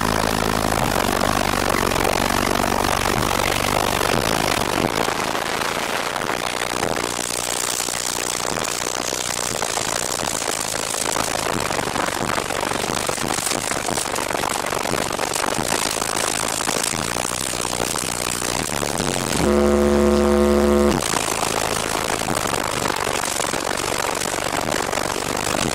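A wall of four 18-inch FI BTL subwoofers playing at competition level, heard mostly as a loud rushing, wind-like noise where the air they move buffets the microphone. A few steady low bass notes come in the first seconds, and about three-quarters through one loud, distorted low bass note holds for about a second and a half.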